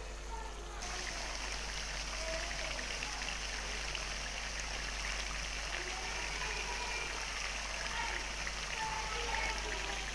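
Chicken cooking in a wet green herb-and-yogurt masala, sizzling steadily in the pan, the sizzle growing a little louder under a second in.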